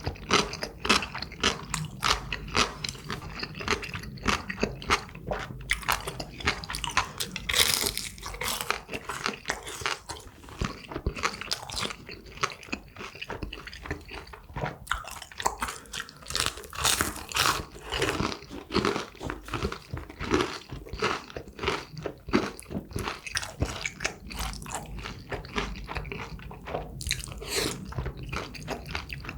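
Close-miked crunching and chewing of crispy deep-fried tangsuyuk (Korean sweet-and-sour pork), a dense run of sharp, rapid crunches from repeated bites.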